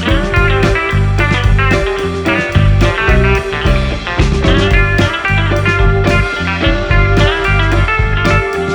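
Background music: guitar-led blues-rock with a steady beat and bass line.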